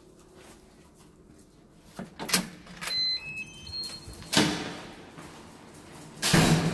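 Apartment front door being unlocked and opened: latch clicks about two seconds in, then a short tune of electronic beeps from a digital door lock. A bang follows, and a louder bang near the end as the door swings shut.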